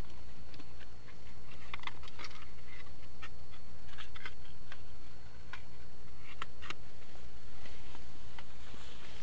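Scattered small clicks and light rustles, a few a second at irregular intervals, over a steady low rumble.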